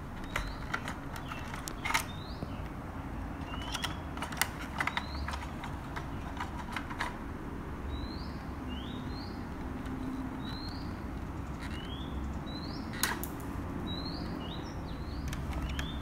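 Plastic clicks and snaps from the 2009 G.I. Joe Steel Crusher toy's rotating gun turret and spring-loaded missile launcher being handled, the sharpest snaps about two seconds in and again about thirteen seconds in. A bird chirps repeatedly in the background in short rising notes.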